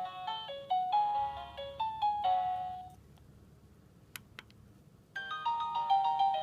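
Electronic chime receiver of a wireless motion-sensor chime playing one of its call melodies as a run of clean beeping notes, which stops about three seconds in. After a short pause with two brief clicks, another melody starts near the end.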